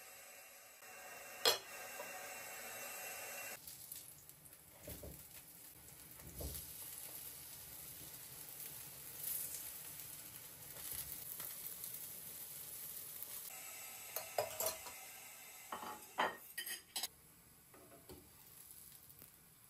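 Syrniki (cottage-cheese pancakes) sizzling as they fry in oil in a frying pan, with forks clinking against the pan as they are turned and lifted out, a cluster of sharp clicks in the last few seconds. A single sharp knock comes about a second and a half in.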